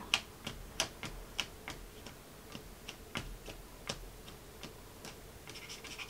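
Eraser worked back and forth over watercolor paper to lift pencil lines, giving a light tick with each stroke, about three a second at an uneven pace. Near the end it turns to a scratchier rubbing.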